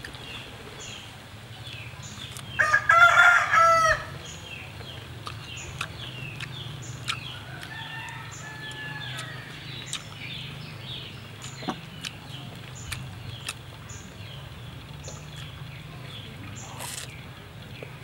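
A rooster crowing once, loud, about three seconds in, over faint chirping that repeats at a regular beat.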